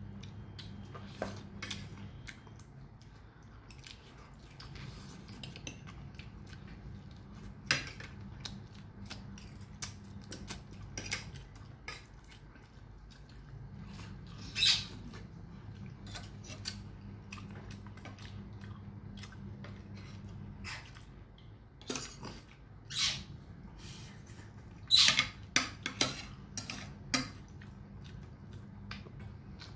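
Close-up eating sounds: chewing, lip smacks and mouth clicks of someone eating with her hands, scattered irregularly, with a cluster of louder smacks near the end. A low steady hum runs underneath and drops out for stretches.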